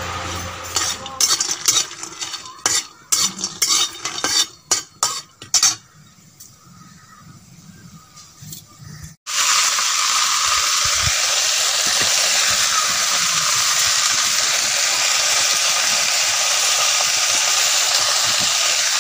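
Poi (Malabar spinach) stems being snapped and torn by hand: a quick run of sharp snaps over the first several seconds, then a quieter lull. From about nine seconds in, a steady, loud sizzling hiss takes over.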